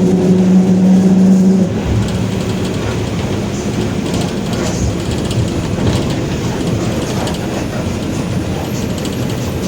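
Ride inside a Mercedes-Benz OF-1721 city bus: a steady hum under load, the differential growl this recording is about, cuts off about a second and a half in. After that the bus rolls on with road rumble and scattered body rattles.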